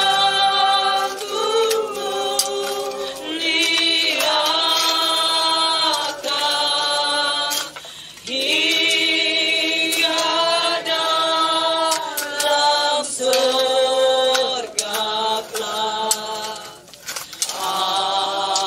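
A group of voices singing a slow hymn without accompaniment, in long held phrases with brief pauses for breath.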